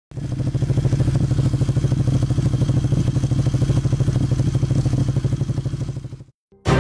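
Motorcycle engine running steadily, its exhaust a rapid even pulsing, then fading out near the end.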